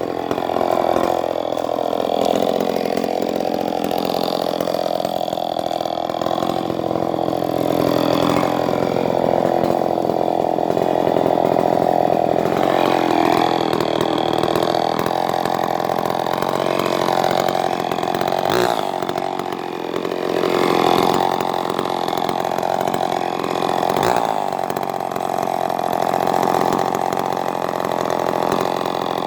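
Vintage Skil 1629 68cc two-stroke chainsaw running at high revs while cutting stringy-bark gum wood, its pitch dipping and recovering again and again as the chain loads up in the cut. It revs up near the end.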